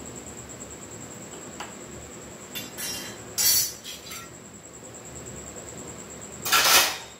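Bottle-gourd koftas sizzling steadily as they deep-fry in oil in a kadhai. Kitchen utensils clink a few times around the middle, and once more, loudest, near the end.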